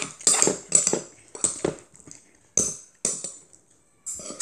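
A metal spoon scraping and clinking in a bowl of radish bibimbap as it is scooped: a series of short, irregular clinks and scrapes with a quiet gap near the end.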